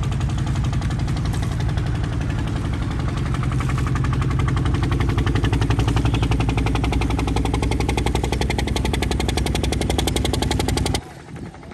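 Small boat motor running steadily with a fast, even pulse; it cuts off suddenly about eleven seconds in.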